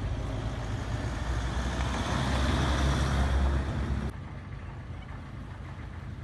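An ambulance's engine and tyres passing close by, growing louder, then cut off abruptly a little over four seconds in; a quieter steady low rumble follows.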